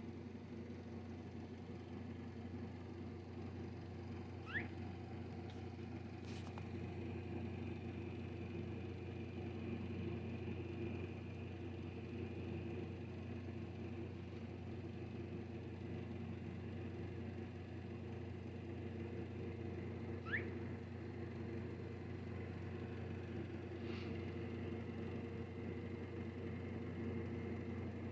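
A steady low hum, with two short rising squeaks from a baby squirrel about sixteen seconds apart and a fainter one soon after the second.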